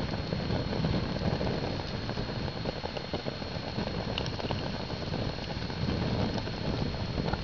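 Wind buffeting the microphone in uneven low gusts, over the steady hiss of homemade wax-and-wood-chip fire starters burning in a tin-can stove under a pot of water.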